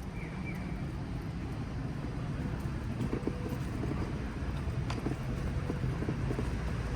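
Steady low outdoor rumble of wind and distant traffic, with a couple of short, high, falling chirps near the start and a few faint clicks.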